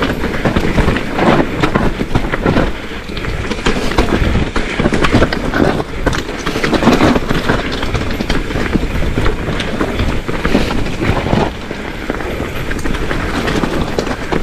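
Mountain bike descending a rough trail: a steady, loud rattle and clatter of the bike over the ground, with tyre noise on the dirt.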